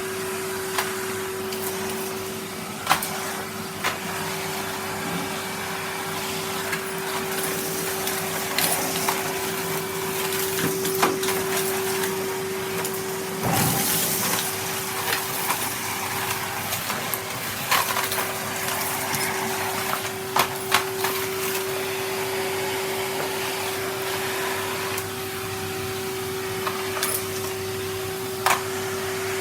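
Vacuum cleaner running with a steady motor whine, and scattered sharp clicks and rattles as crushed hazelnut shell pieces are sucked up. A brief louder rush comes about halfway through.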